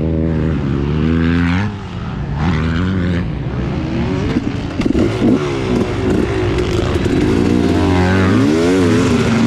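Two-stroke dirt bike engine running at low revs and blipped on the throttle, the pitch rising and falling several times in the second half.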